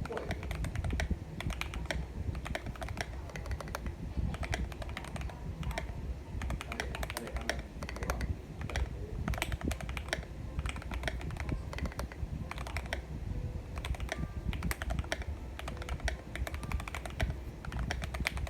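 Fast typing on an MK870 mechanical keyboard with Gateron Pro Silver linear switches, their stems and springs lubed with Krytox 205g0, in a foam-dampened case: a steady, uneven stream of keystrokes, several a second.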